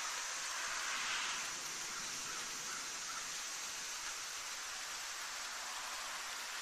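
Light rain falling steadily, an even hiss with no thunder heard.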